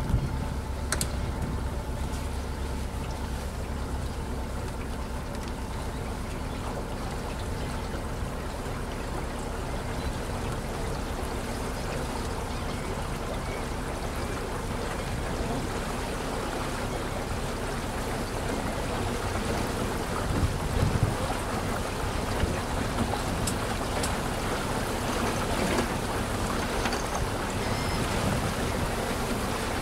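A boat's motor running steadily at low speed, with water washing against the hull. A low engine hum is plainest in the first half, then the water noise dominates.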